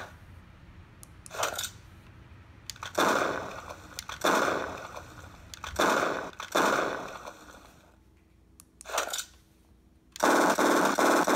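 M41A Pulse Rifle sound font played from a Plecterlabs BlasterCore 4 prop sound board. It gives several separate effects, each swelling and fading, with short quiet gaps between them. Near the end a rapid fully automatic burst of shots begins.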